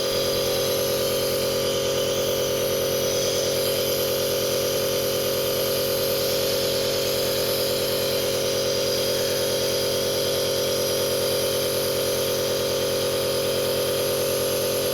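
Compressor nebulizer running with a steady, unchanging hum while it treats a child's cough and cold.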